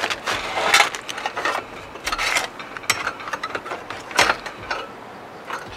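Crumpled aluminium foil crinkling while a wire cooking rack and a metal spatula scrape and clink beneath a rack of ribs, in irregular rustles and sharp clicks.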